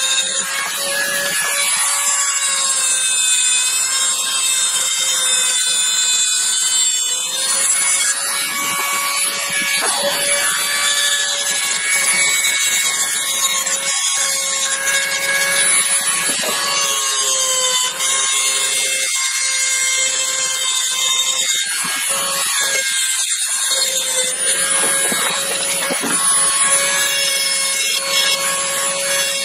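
Handheld rotary tool running at high speed with a steady whine, its small bit grinding against the steel of a pair of Channellock tongue-and-groove pliers to clean off rust and crud. The pitch sags slightly now and then as the bit is pressed into the work.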